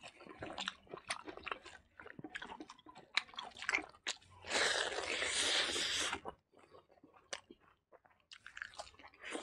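Close-miked mouth sounds of a person eating by hand: wet chewing, lip smacks and crunching of a mouthful of rice, pork and fresh greens, with a louder, noisier stretch of about two seconds around the middle.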